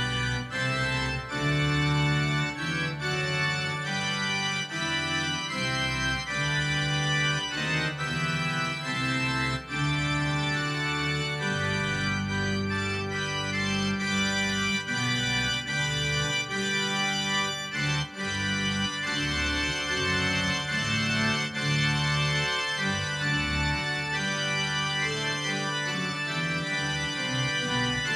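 Yamaha MODX6 synthesizer playing a grand pipe organ patch, built from pipe-organ samples layered an octave below, at and an octave above the played notes. Full sustained chords with a low bass part, the chords changing every second or two.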